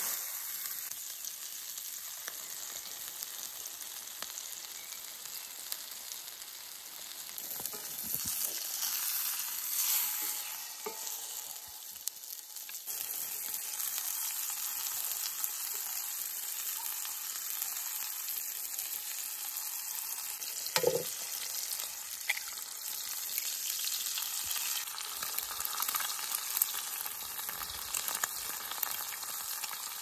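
Beef burger patty sizzling steadily in hot fat in a cast-iron skillet, with a few short knocks of utensils against the pan, the loudest one past the middle.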